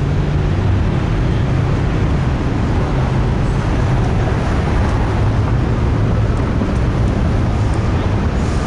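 Freight train passing: a steady rumble of rolling cars with a low engine drone.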